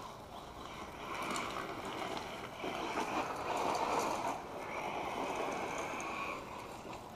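1/8-scale RC car with a Castle Sidewinder 2200 kV brushless motor system driving fast on gravel: motor whine and tyres crunching and throwing gravel, loudest about three to four seconds in as it passes close, then going on as it speeds off.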